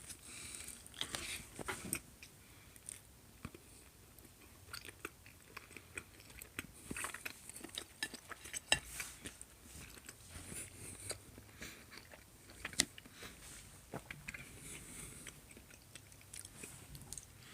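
A person chewing a mouthful of pizza: irregular small clicks and crunches, with a couple of sharper clicks about nine and thirteen seconds in.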